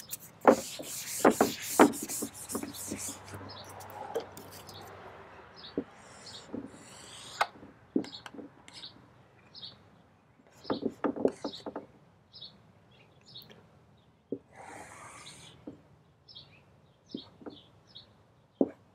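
Whiteboard being wiped and drawn on with a dry-erase marker: a run of brisk rubbing strokes in the first two seconds, then scattered taps and short high marker squeaks as new lines go on the board.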